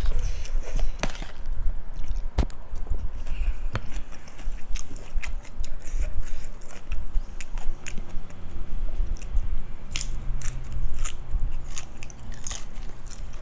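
Close-miked chewing and biting of crunchy food (spicy cucumber salad with pork crackling), with many short, sharp crisp crunches that come thicker near the end.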